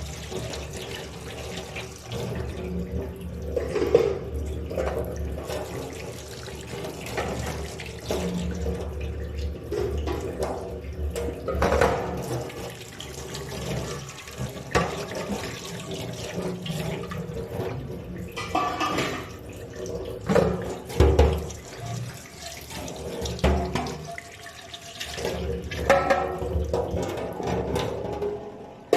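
Tap water running into a kitchen sink while dishes are washed by hand, with irregular knocks and clatter throughout.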